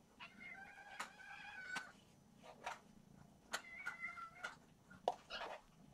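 Young kittens meowing repeatedly, one long drawn-out call near the start and shorter calls later, begging to be fed. A few short sharp clicks sound among the meows.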